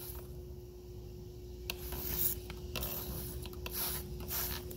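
Trigger spray bottle squirting leak-detection bubble solution onto repaired copper refrigerant joints in several short hisses, checking the repairs for leaks.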